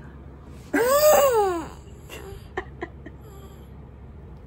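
A baby's single vocal squeal, about a second long, rising then falling in pitch, followed by a few faint clicks.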